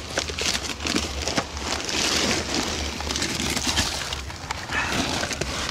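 Close handling and movement noise: rustling, scraping and a dense, irregular run of small knocks and clicks, as of someone shifting about and handling gear in a tight space.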